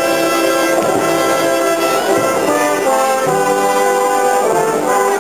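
Brass band playing a slow piece of held chords, each lasting about a second before moving to the next.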